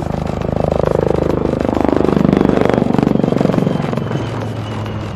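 HAL Prachand light combat helicopter flying close by, its rotor and twin turboshaft engines swelling louder with rapid blade beats. The pitch falls steadily as it goes past, and the sound fades back toward the end.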